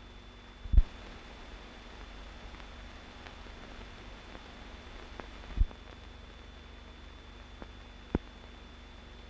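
Steady hiss and hum of an old film soundtrack, with a faint steady high tone, broken by three dull low thumps, the loudest about a second in, and a few faint ticks.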